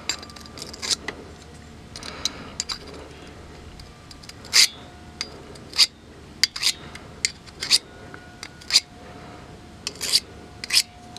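Steel blade of a root pruning shear drawn across a handheld sharpening stone in a dozen or more short, separate scraping strokes, all in one direction, to hone a fine edge. The strokes grow louder from about four seconds in.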